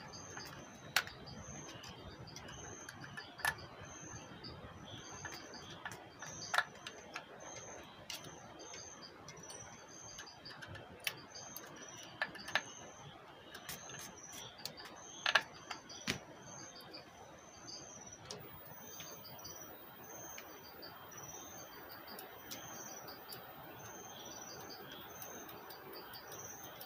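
Scattered sharp clicks and taps from hands and tools handling an under-seat subwoofer's plastic casing, about ten spread irregularly. Behind them, a steady high chirping repeats about twice a second.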